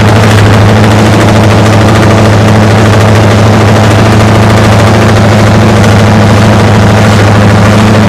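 Classic MV Agusta multi-cylinder racing motorcycle engine idling through open racing exhausts, loud and steady, its pitch unchanging.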